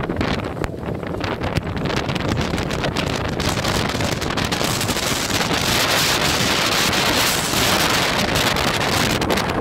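Strong wind buffeting the microphone aboard a heeling sailboat in a gale, with waves rushing past the hull. The rush grows stronger about three seconds in and stays loud.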